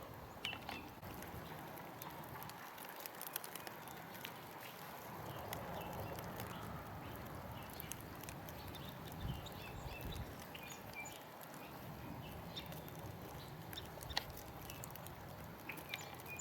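Faint outdoor ambience: a low rumble that comes and goes, with scattered short, distant bird chirps and a few light clicks.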